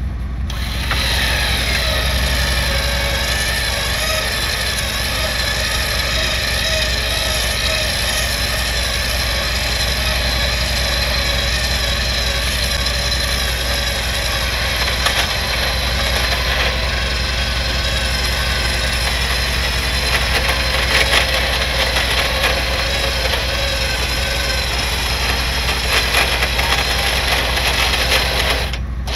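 Truck engines running steadily as a tracked recovery pickup tows a stuck Chevrolet Colorado backward through deep snow on a strap.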